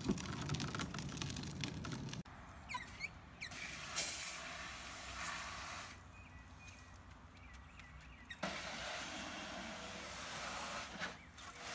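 Plastic kids' wagon rolling over pavement with a low rumble for the first two seconds. Then a garden hose spray nozzle hissing on and off as a toddler sprays water onto concrete.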